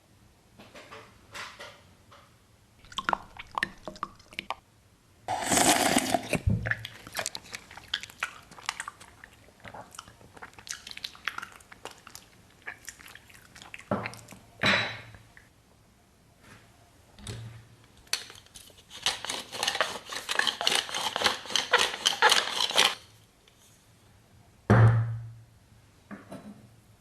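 Close-miked ASMR eating sounds of watermelon and raw egg: wet chewing and crunching, with clinks of tableware. A long run of dense crunching comes about two-thirds of the way through, and there are a few dull thumps.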